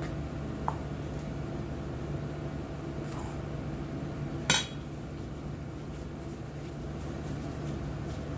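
Kitchenware clatter over a steady low hum: a light click about a second in, then about halfway through one sharp metallic clink with a short ring, a utensil knocking against a stainless steel mixing bowl.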